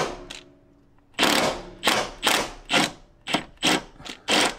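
Impact wrench hammering in a string of short trigger pulls, about eight quick bursts, loosening the pitch stop bolts.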